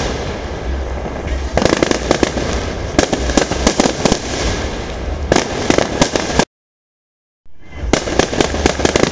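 Fireworks display: a constant crackle and rumble of bursting shells, with clusters of sharp bangs about two, three and five seconds in. Near the end the sound cuts out to silence for about a second, then comes back.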